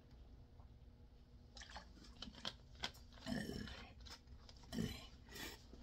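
Plastic water bottle crackling and clicking as it is handled and its cap twisted, starting about a second and a half in.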